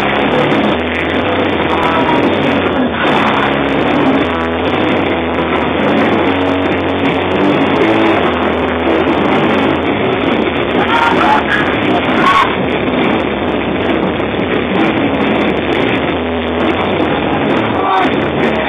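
Drum kit being played hard with frequent cymbal crashes and drum hits, over loud rock music with a steady bass line.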